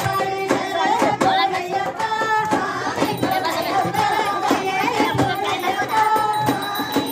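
Devotional Ayyappa bhajan: singing over a sustained drone-like tone, with a beat of percussion about twice a second.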